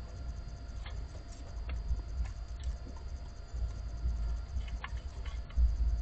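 Outdoor microphone rumbling with wind, with a few scattered light clicks.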